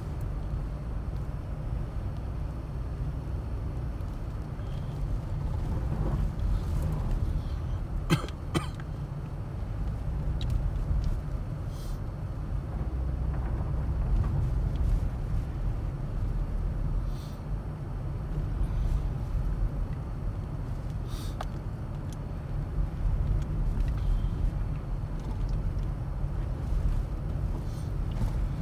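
Steady low rumble of a car being driven, heard from inside the car, with a couple of sharp clicks about eight seconds in.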